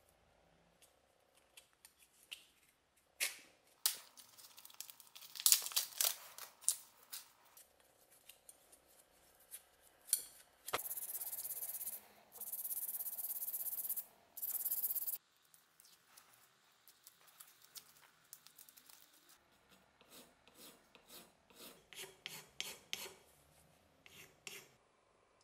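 Masking tape crackling and tearing as it is peeled off a knife blade, then steady rasping in three stretches as sandpaper rubs glue residue off the steel. Near the end comes a run of quick, short strokes of a small hand file on the metal at the handle end of the blade.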